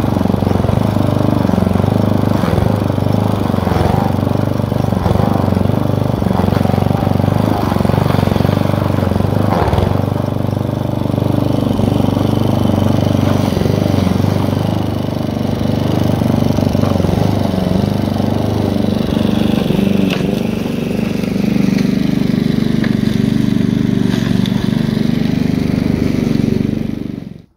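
Petrol walk-behind lawn mower engine running steadily under load while cutting long grass, then stopping abruptly near the end.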